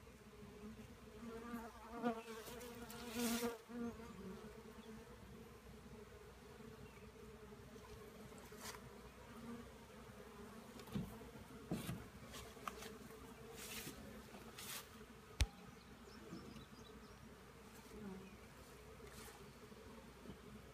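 Honeybee colony in an opened long hive humming steadily. A few light knocks and clicks come from the wooden hive and frames being handled, the sharpest about fifteen seconds in.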